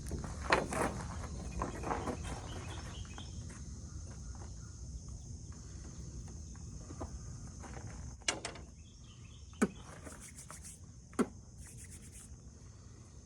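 Steady chorus of crickets or other insects, a high even drone. Over it come rustling in the first couple of seconds and a few sharp clicks and taps later on.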